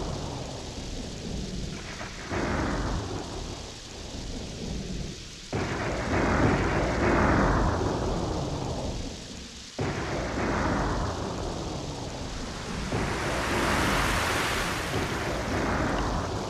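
Thunderstorm: steady heavy rain with three sudden claps of thunder, about 2, 5.5 and 10 seconds in, each fading into a rumble. The rain swells louder near the end.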